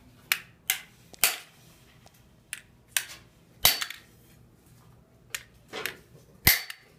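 Hard blows struck on a tough object being smashed to break it open: about nine sharp cracking hits at uneven spacing, the loudest about two-thirds of the way through and near the end.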